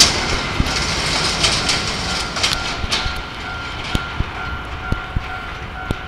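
JR Freight DE10 diesel-hydraulic locomotive running away along the track, its sound fading. Sharp clicks come from its wheels passing over rail joints and points.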